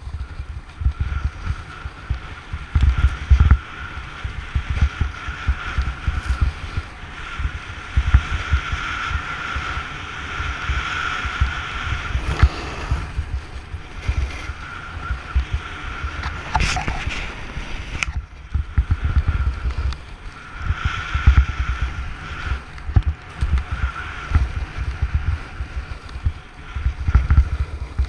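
Wind buffeting the microphone of a body-mounted action camera in irregular low gusts, over the steady hiss and scrape of a snowboard sliding and carving on packed snow. A couple of sharp knocks come a little past halfway.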